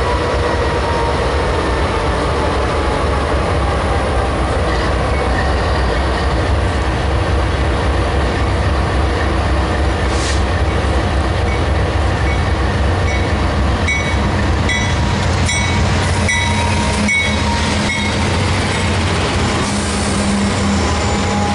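Diesel freight locomotives: a Canadian Pacific GE AC4400CW idles close by with a steady heavy rumble while a freight train approaches and passes. From about two-thirds of the way in, wheels click over the rail joints about once a second, and a passing locomotive's engine grows louder near the end.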